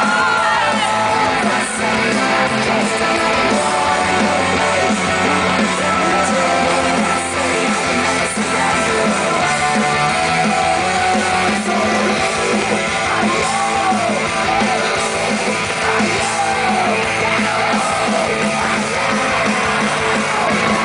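Loud rock-style pop music with a guitar and a singing voice, with people in the crowd yelling.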